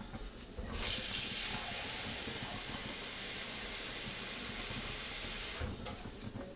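Water pouring in a steady stream into a large stainless steel pot of soupy jambalaya, starting about a second in and stopping shortly before the end.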